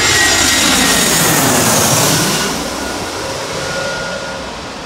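Twin-engine jet airliner on landing approach passing low overhead, its engine noise loud with a falling pitch as it goes over, then fading away.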